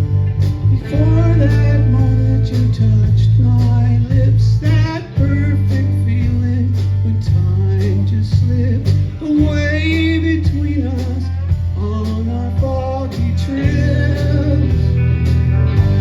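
A song: a singing voice with wide vibrato over guitar, heavy bass and a steady drum beat.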